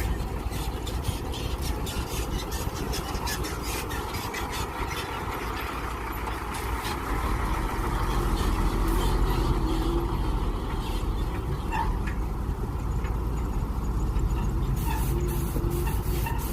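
Mini excavator engine running steadily under digging load, with many short clicks throughout; it gets louder about seven seconds in.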